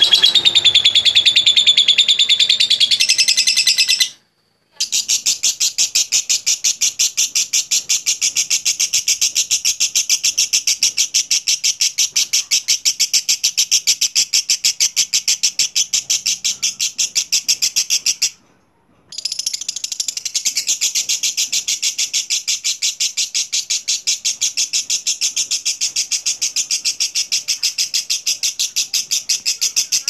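Fischer's lovebird giving ngekek, its long rapid chattering trill of evenly spaced high notes run together without pause. It breaks off abruptly twice, about four seconds in and again near the middle.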